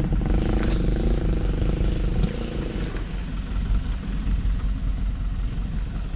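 Motorcycle engine running while riding over a rutted dirt road, with a low, pulsing wind rumble on the microphone. The higher engine note fades about three seconds in.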